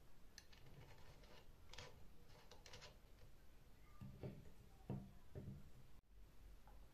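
Faint small clicks and light taps of a steel nut and bolt being fitted into the wooden handle of a hand bike pump, followed by a few soft knocks between about four and five and a half seconds in.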